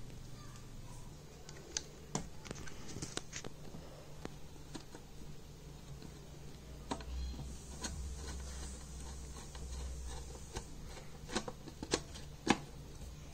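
Scattered light clicks and taps of a screwdriver and a small TV speaker's metal frame against the TV's plastic rear cabinet as the speaker is screwed into place, with a few sharper clicks near the end.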